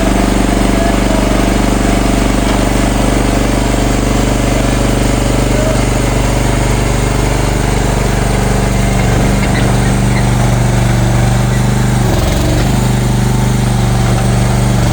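Small petrol engine of a mini excavator running steadily at a constant loud level, its note shifting slightly about halfway through and dipping briefly near the end.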